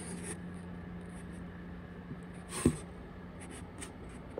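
Light handling noise: small clicks and rustles over a steady low hum, with one sharp knock about two and a half seconds in.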